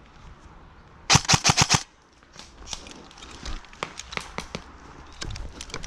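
An airsoft gun fired in a quick burst of about seven shots, a little over a second in, followed by scattered faint clicks.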